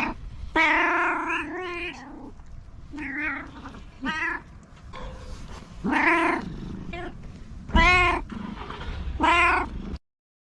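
Domestic cat meowing repeatedly: about seven drawn-out, pitch-bending meows, the first the longest. The uploader takes these meows as a cat expressing contentment. The sound cuts off abruptly near the end.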